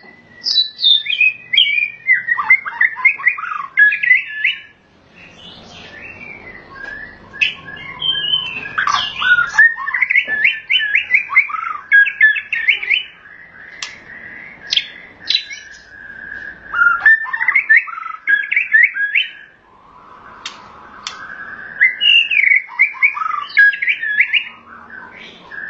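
White-rumped shama (murai batu) singing a long, varied song: fast runs of whistles, chips and trills in phrases with brief pauses, packed with the borrowed phrases (isian) that shama keepers prize.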